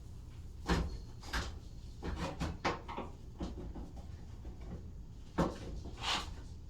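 Pry tools clicking and scraping against the sheet-metal top of a clothes dryer as the lid is worked loose from its retaining clips, a string of short knocks with the loudest about five and a half seconds in.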